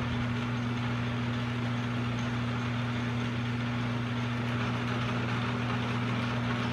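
South Bend Heavy 10 metal lathe running under power with the carriage power feed engaged, cutting nothing: a steady motor hum with the whirr of the spindle and gears, unchanging throughout.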